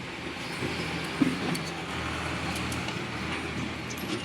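Motor traffic rumbling steadily in the background, with a single short knock about a second in.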